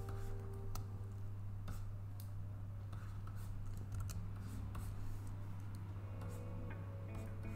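Scattered light clicks and scratches of a stylus working on a drawing tablet's screen, over a steady low hum. Soft background music comes back in about six seconds in.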